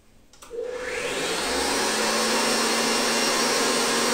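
Electric stand mixer switched on to high speed: a click, then the motor and whisk spin up over about a second to a steady whir, beating egg white with pumpkin and apple purée.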